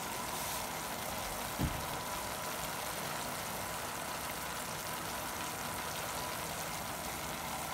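Shawarma meat and onions simmering in their own juices in a pot, a steady hiss, with one brief low thump about a second and a half in.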